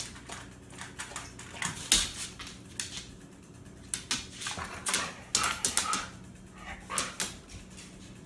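A dog moving at her metal food bowl on a hardwood floor: a string of sharp clicks and taps from claws, collar and bowl, with a cluster of them close together a little past the middle.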